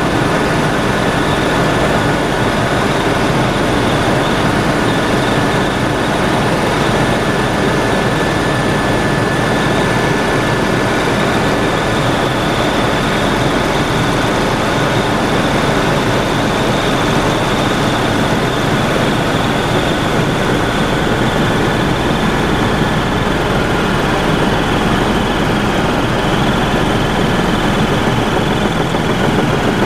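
Helicopter cabin noise in steady forward flight: a loud, even rush of rotor and engine noise with thin, steady high whines running over it.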